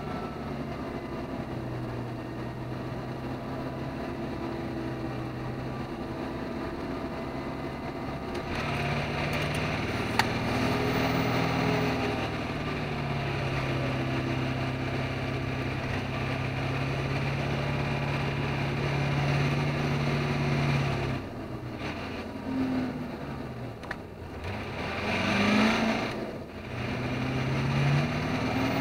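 Truck engine heard from inside the cab, running at a steady pace. About 21 seconds in the engine note drops, then climbs twice in a row.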